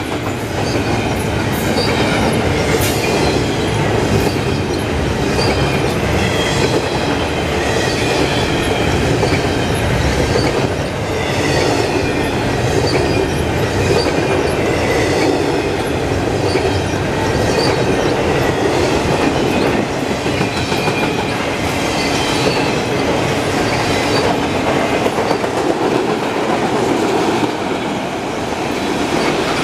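Freight train of double-stacked container well cars and auto racks rolling past close by: a steady rumble of steel wheels on rail, with repeated clicks as the wheels cross rail joints and high, wavering wheel squeal.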